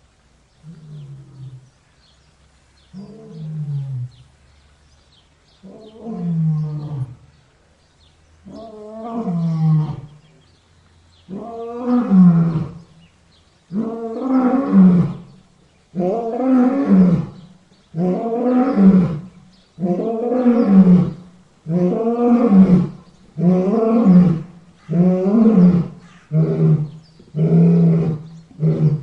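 A lion in a roaring bout: a series of roars that start soft and a few seconds apart, then grow louder and come faster. Near the end they are shorter, about one every second and a half.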